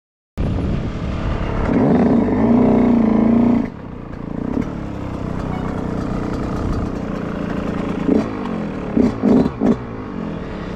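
Yamaha YZ125 two-stroke single-cylinder engine revving for a couple of seconds, then dropping back to a steady run, with four quick throttle blips near the end.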